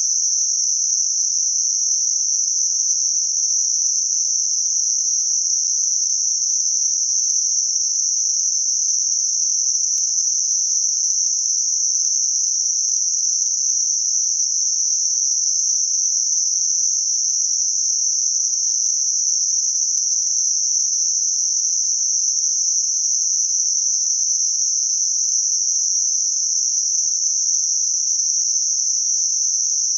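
Synthetic 6 kHz Gaussian narrowband noise: a steady, unchanging high hiss with no low sound under it, generated to mask high-frequency tinnitus.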